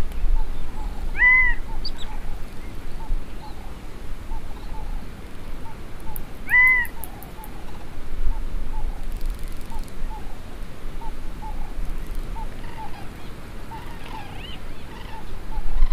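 Birds calling outdoors: two clear, arched calls about five seconds apart stand out over a steady background of many soft chirps, with a low rumble underneath.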